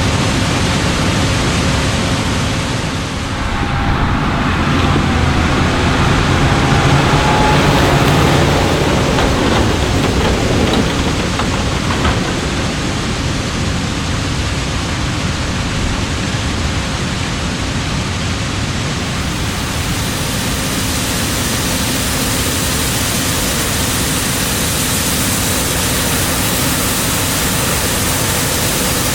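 John Deere S7 800 combine harvesting corn: a steady, loud mix of engine and machinery noise with a low hum. The sound changes character about three seconds in and again about two-thirds of the way through.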